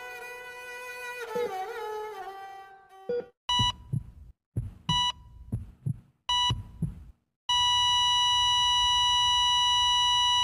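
A violin melody fades out; then a bedside patient monitor beeps three times, about one and a half seconds apart, each beep with a heartbeat thump. Half a second after the third beep it goes into one unbroken steady tone, the flatline alarm that signals the heart has stopped.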